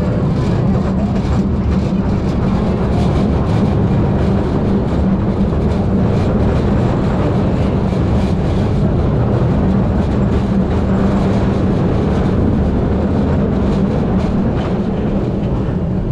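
Market Street Railway streetcar No. 578, built in 1896, running on its rails: a steady rumble of wheels and its two GE 1000 traction motors, with a low hum and faint clicks.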